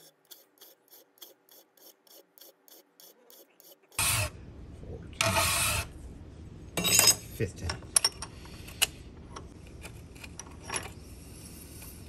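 Hand file rasping across a key blank clamped in a bench vise, thinning each side of the blade: first a quick run of light, even strokes, about three a second, then a few longer, louder strokes and sharp metallic clicks.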